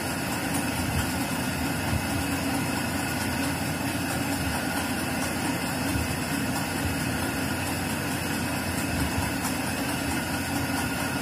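Steady background machine hum and hiss, even in level throughout, with a few faint steady tones in it.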